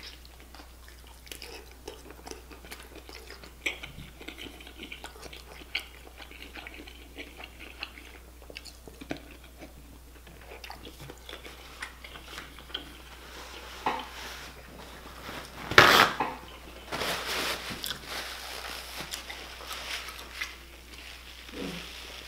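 Close-miked eating of a deshelled seafood boil: wet chewing and biting mouth sounds with scattered small clicks and some clinking of dishes or utensils. A sharper, louder knock comes about 16 seconds in.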